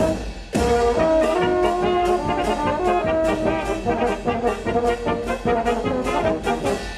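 Music with brass instruments playing a melody of held notes over a steady beat.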